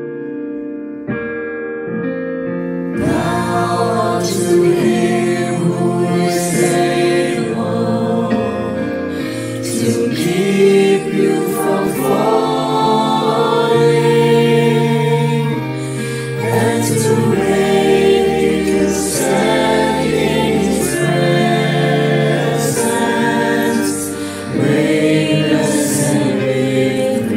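A keyboard plays a brief introduction, then about three seconds in a mixed choir of men's and women's voices comes in singing a gospel worship song over the accompaniment.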